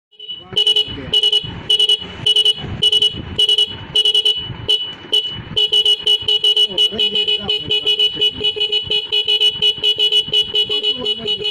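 Motorcycle horn beeping in a steady-pitched, repeated pattern: spaced beeps at first, then from about five seconds in a faster run of about four beeps a second.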